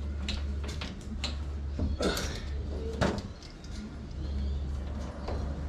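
Knocks, clicks and light rattling from a fly-screen frame being handled while new mesh is pressed into its groove with a spline roller. The knocks come about once a second, with a louder scraping knock about two seconds in.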